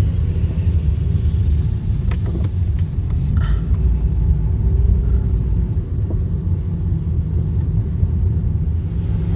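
Steady low rumble of a car driving on a wet road, its engine and road noise heard from inside the cabin.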